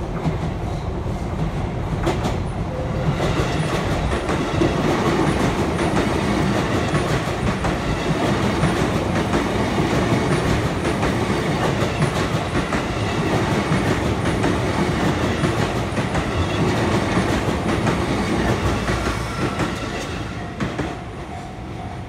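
An electric commuter train passes close by over a level crossing, its wheels clattering on the rails. The sound builds as the train approaches, stays loud while the cars go by, then fades near the end. Throughout, the level-crossing alarm rings in an even, repeating pattern.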